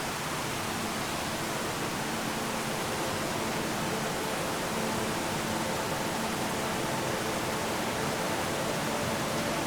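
A waterfall: water falling and rushing in a steady, even roar with no breaks.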